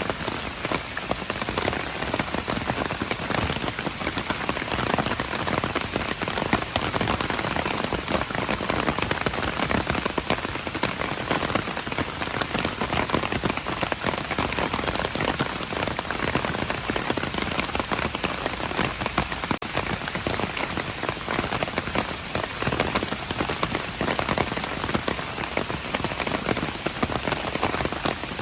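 Steady rain falling and pattering on hard surfaces, a dense spatter of drops with no let-up.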